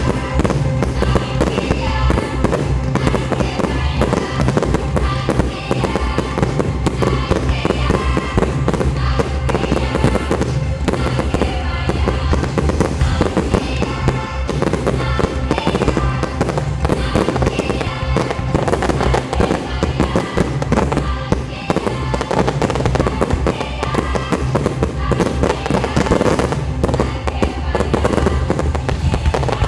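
Fireworks finale: a dense, unbroken barrage of shell bursts and reports, over a musical soundtrack.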